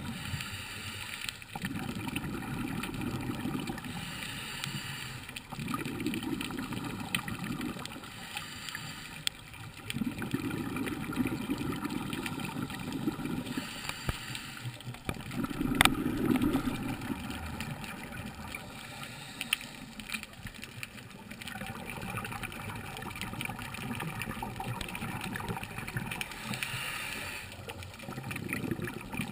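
A scuba diver breathing underwater, heard through a GoPro's housing: a hiss on each inhale through the regulator, then a burst of exhaled bubbles, about every four to five seconds. One sharp click about halfway through.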